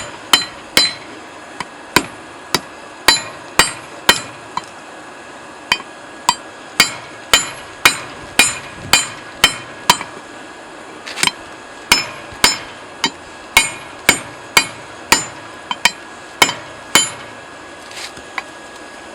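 Hand hammer striking hot steel, forging the tapered tip of a drift made from a railroad clip on a makeshift anvil. It is a steady run of sharp, ringing blows, about two a second, that stops near the end after a couple of lighter taps.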